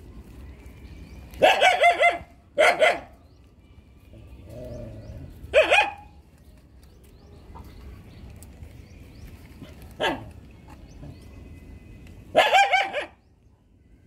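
A dog barking off and on: two barks about a second and a half in, another near six seconds, a short one about ten seconds in, and a final bout near the end.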